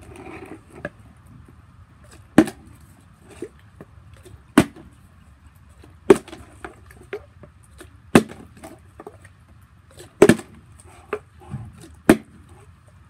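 Part-filled plastic water bottles flipped and landing on a concrete surface, a sharp clack about every two seconds: six loud landings with softer knocks and bumps between. Some bottles land upside down on their caps.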